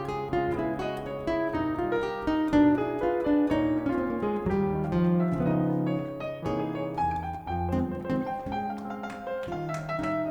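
Live jazz played on piano and acoustic guitar: a busy run of quick plucked and struck notes over sustained chords.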